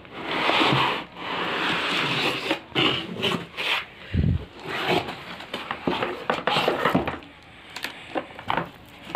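Cardboard laptop box being opened and handled: lid and flaps scraping and rubbing, then a string of short knocks and rustles as the packing inside is moved, with a dull thump about four seconds in.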